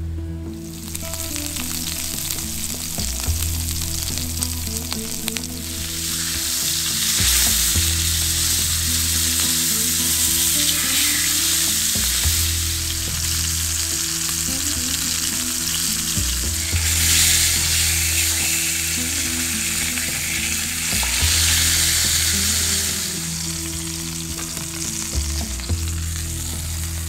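Steaks frying in hot oil in a frying pan over a small camping stove, a steady sizzle that swells louder twice.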